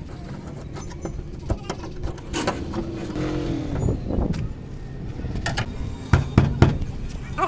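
Hand work on a van's sheet-metal body: scattered clicks and knocks, with a louder cluster of knocks about six seconds in. Under them runs a steady traffic hum, and a passing motor vehicle rises and then falls in pitch around the middle.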